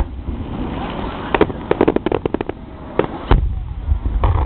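Aerial fireworks shells bursting during a display finale. A quick string of crackling reports comes about halfway through, and heavier booms with a low rumble follow about three seconds in.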